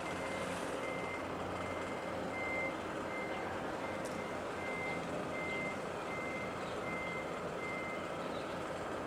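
A vehicle's reversing alarm beeping at an even pace, about one and a half beeps a second, stopping near the end, over a steady low background rumble.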